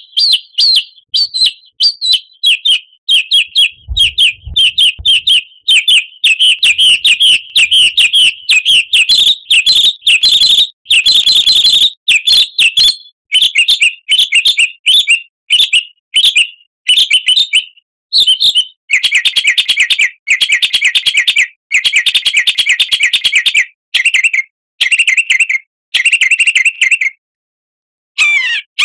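Songbird chirping in fast, sharp, repeated notes, breaking into rapid trills in short runs in the second half, with a brief pause near the end. This is the kind of recorded birdsong played to caged songbirds to set them singing. A short low thud comes about four seconds in.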